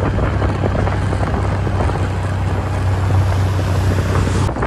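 A vehicle on the move, with wind rushing over the microphone: a steady rushing noise over a low, even drone.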